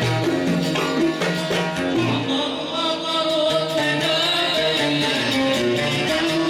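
Arabic song music with plucked strings and a steady beat.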